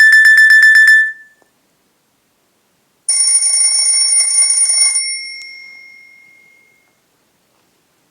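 Two Nokia C2-01 phone alert tones. A fast beeping tone, about a dozen beeps a second, stops about a second in. About three seconds in, a high ringing tone sounds for two seconds and then fades away.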